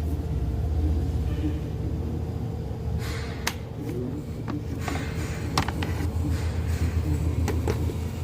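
Sharp plastic clicks and knocks from about three seconds in, as the truck's cabin-filter cover and filter are handled, over a steady low rumble.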